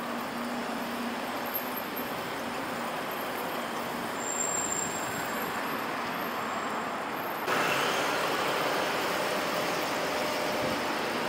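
City street traffic: cars and scooters passing, a steady rush of engine and tyre noise. About two-thirds of the way through, it cuts suddenly to a louder, steadier rush.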